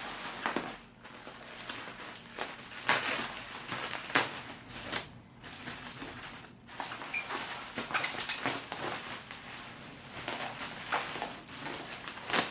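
Packing wrap being pulled off and unwrapped by hand, rustling and crackling irregularly, with a few louder crinkles.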